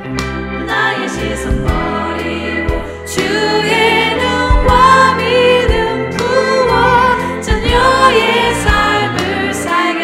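Background music: a song with a wavering sung melody over a bass line and a steady beat.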